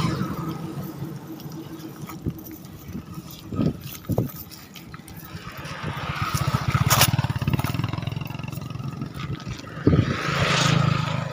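A motorcycle engine running with an even low pulse, swelling and fading twice. A few short knocks and rustles come through as well.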